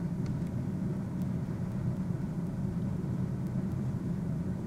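Steady low rumble of background noise with no distinct events, like a running vehicle or a room hum.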